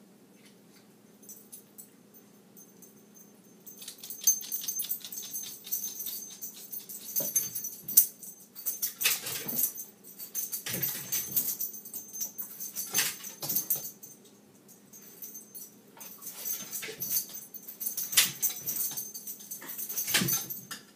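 Miniature pinscher whimpering and moving about, its claws clicking and scrabbling in stretches from about four seconds in, with a scrabble as it jumps up onto the kitchen counter near the end.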